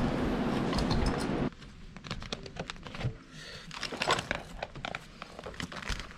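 A loud steady rush of noise cuts off abruptly about a second and a half in. After it come quieter scattered clicks and crinkling, as of things being handled in a small room.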